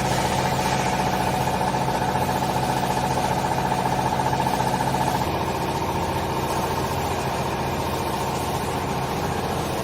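Hydraulic cloth baler's electric motor and hydraulic pump running steadily with a humming, finely pulsing drone; the lower notes shift about five seconds in.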